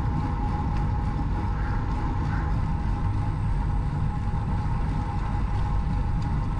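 Steady wind rumble on the microphone of a camera riding on a moving bicycle, with rolling road noise, heaviest in the low end.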